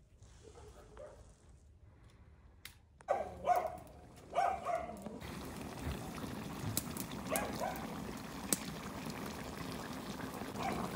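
About three short animal calls, likely a dog, a few seconds in, then a steady hiss of liquid with scattered light clicks for the rest.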